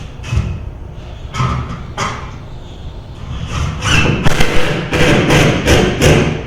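Hammer striking repeatedly, knocking in lag bolt anchors: three separate blows, then a quicker run of about three blows a second through the second half.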